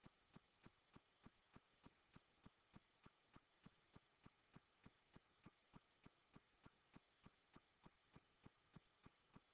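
Near silence, with faint, evenly spaced clicks about three times a second.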